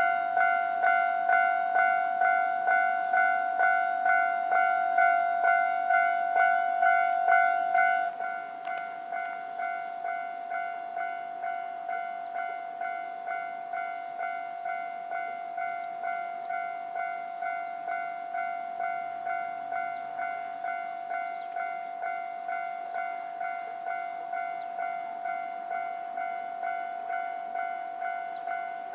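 Japanese railway level-crossing warning bell ringing in an even repeated ding, about one and a half strokes a second. About eight seconds in it drops to a noticeably quieter level and keeps ringing.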